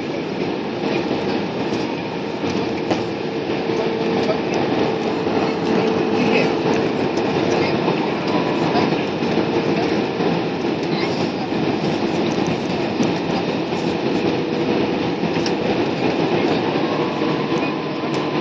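Airliner cabin noise during landing: a steady rumble and rush of air with a constant hum running through it.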